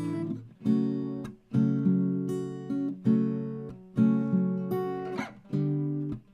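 Acoustic guitar strumming chords, one chord about every second, each ringing and fading before the next.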